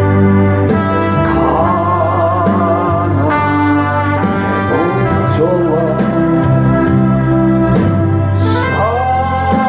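Worship music: a hymn played on keyboard and band instruments, with a singing voice carrying the melody.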